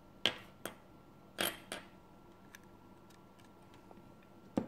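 Sharp plastic-and-metal clicks of a 9-volt battery being handled and taken off its test-lead clip: about five short clicks, in pairs early on and once more near the end.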